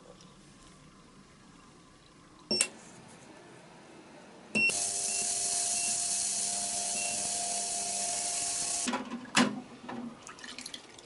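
Digital heated ultrasonic cleaner: a click and short beep, then a loud steady hissing buzz as the ultrasonic bath runs for about four seconds, with a few short beeps from the control buttons. It cuts off suddenly, and a couple of knocks follow as a hand reaches into the tank.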